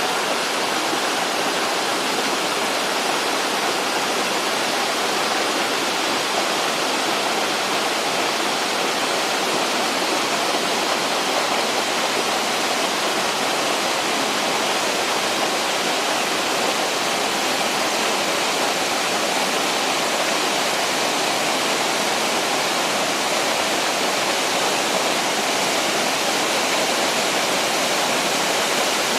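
Waterfall: a steady, even rush of falling water splashing into its pool.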